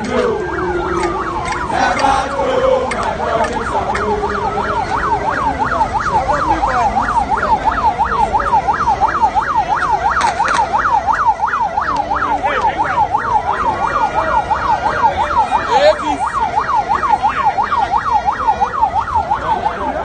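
A siren sounding: a slow rising and falling wail that switches about four seconds in to a fast yelp, warbling up and down several times a second, with slower wail sweeps laid over it at times.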